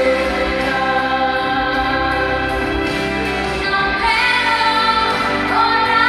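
A boy singing a pop ballad into a hand-held microphone over backing music, holding long notes; his voice climbs higher about four seconds in.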